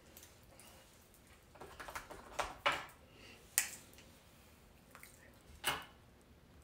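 Eyeglasses being handled and put on close to the microphone: soft rustling and a few sharp clicks, the sharpest about three and a half seconds in and another near the end.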